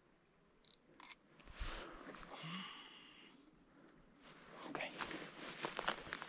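A short high beep about a second in, then a hiker's footsteps scuffing and clicking over rock and grit, thickening and getting louder in the last couple of seconds.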